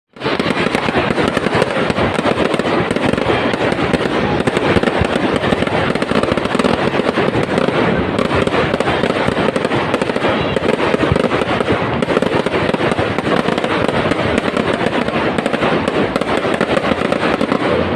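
Fireworks going off in a dense, unbroken barrage of many small bangs and crackles.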